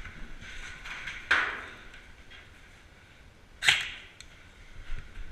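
Two single shots from an airsoft rifle, each a sharp crack with a brief tail, about two and a half seconds apart.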